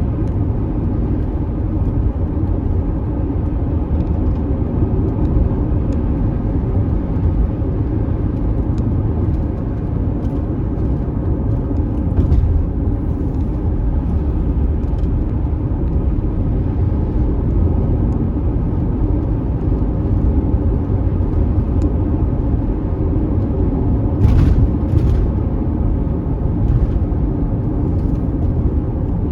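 Car driving along a road, a steady low rumble of road and engine noise with scattered faint ticks, and a brief louder rushing noise about 24 seconds in.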